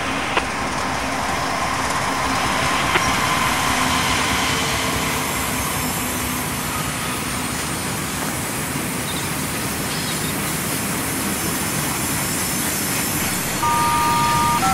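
HO-scale model diesel freight train running down the grade, a steady rushing train sound, with a multi-note horn chord sounding about a second before the end.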